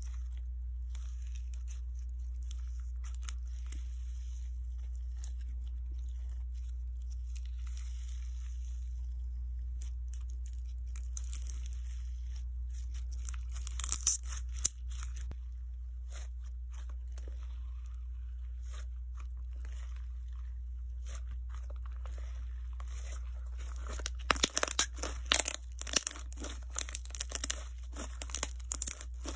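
Jelly slime mixed with bits of melamine sponge being squeezed and crushed between the fingers, the sponge bits giving a crisp, crackly crunch. Quiet handling most of the time, a short burst of crunching about halfway, and dense crunching near the end.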